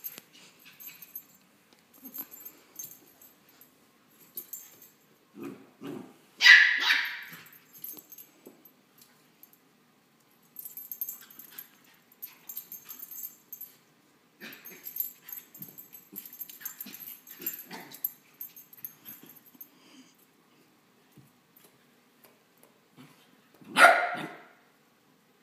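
West Highland white terriers playing, with two loud barks, one about six seconds in and one near the end, and quieter short sounds in between.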